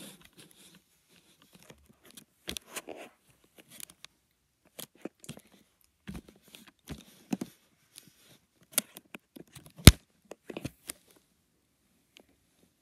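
Irregular rustles and small clicks of handling: the phone being moved about and small plastic toys being handled. The loudest is a single sharp click about ten seconds in.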